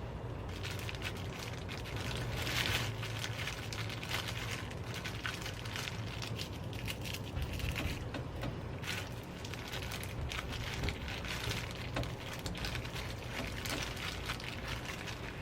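Dense, irregular crackling over a steady low hum, cut off abruptly at the end.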